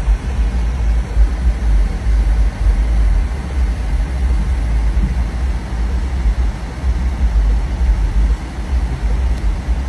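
Floodwater rushing in a torrent, a steady loud noise, with a heavy rumble that comes and goes from wind buffeting the microphone.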